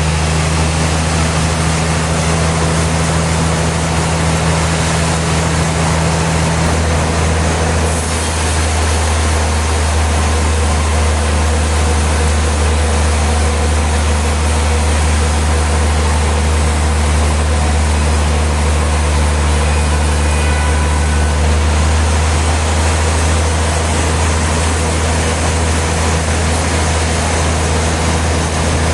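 Sawmill machinery running steadily with a heavy, low engine-like hum under a dense mechanical noise; the low hum grows a little stronger about eight seconds in.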